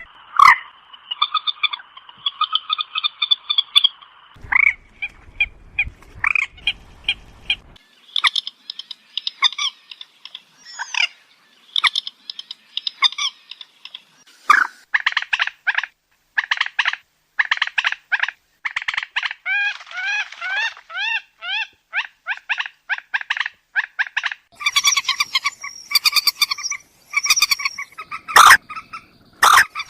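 Moorhen calls repeated over and over: short, sharp notes and quick rattling series, some overlapping, with several abrupt changes in the recording.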